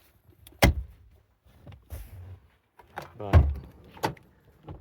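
Car doors thunking: two sharp knocks about three and a half seconds apart, with a short pitched sound just before the second.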